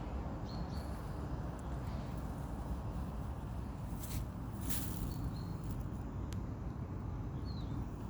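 Outdoor park ambience: a steady low rumble of wind and handling noise on the microphone, with a few short high bird chirps and a couple of brief rustles.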